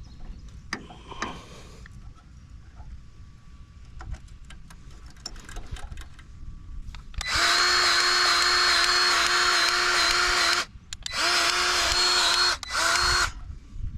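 Battery-powered grease gun motor whining steadily, pumping grease into the stump grinder's fittings: one run of about three seconds about halfway in, then two shorter bursts. Small handling clicks before it.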